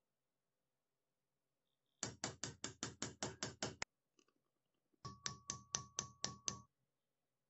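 A hammer tapping a thin steel strip on a steel block clamped in a vise, forming it around a small rod. There are two quick runs of light blows, about ten then about seven, and the second run rings with a metallic tone.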